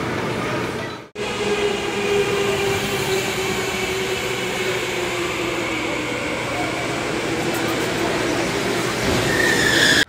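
Indoor go-karts running: a steady electric-motor whine with slowly falling pitch, over tyre and track noise. The sound cuts off abruptly about a second in, then resumes.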